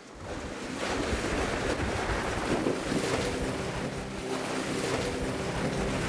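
Plastic sliding mat running down an ice slide carved in glacier ice: a steady scraping hiss of the mat on the ice that starts just after the beginning.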